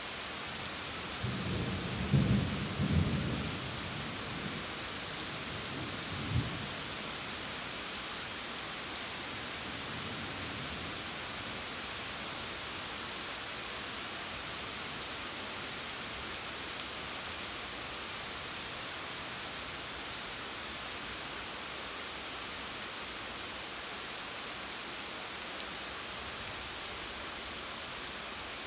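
Steady rain falling at night, with thunder rumbling in the first few seconds and one short, sharper clap about six seconds in.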